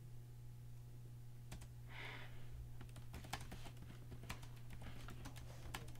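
Faint typing on a laptop keyboard: irregular key clicks, some in quick runs, over a steady low hum.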